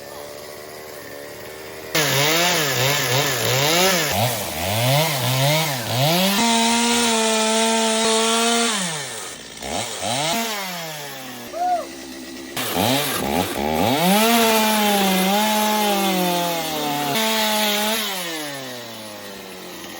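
Gas chainsaw idling, then revved hard and cutting into wood, its engine pitch rising and falling as the throttle is worked. It drops back briefly around halfway and winds down near the end.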